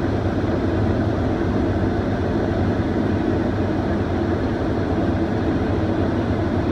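Steady drone of a tracked combine harvester running, an even engine and machinery noise with a low hum underneath.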